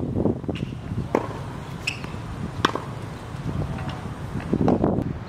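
Tennis ball struck by a racket and bouncing on a hard court: a few sharp pops, the clearest two about a second and a half apart.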